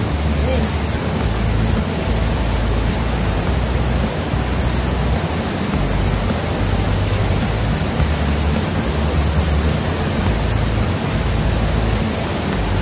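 Steady loud rushing noise of river water and wind, with uneven low rumbling throughout.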